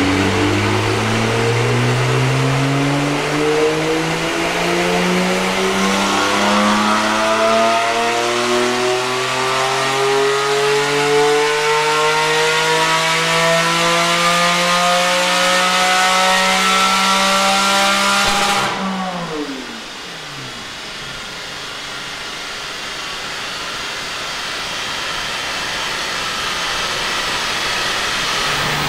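Porsche 718 Spyder's 4.0-litre naturally aspirated flat-six, breathing through a Tubi Style catback exhaust, making a full-throttle pull on a dyno: the revs climb steadily for about eighteen seconds, then the throttle snaps shut and the revs fall away quickly. After that a steady rushing noise slowly grows louder.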